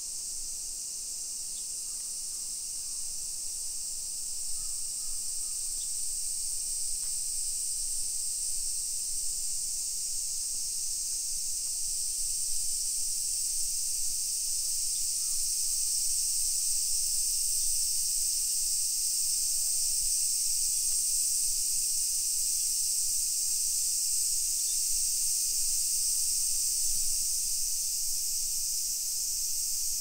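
A dense chorus of cicadas: a steady, high, unbroken buzz that slowly grows louder.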